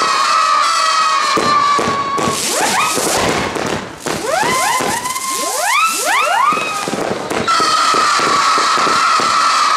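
WECO Night Howler fireworks, two at once, howling as they fly: a steady high whistle, then a cluster of many rising whistles in the middle, then the steady whistle again, over rapid crackling pops.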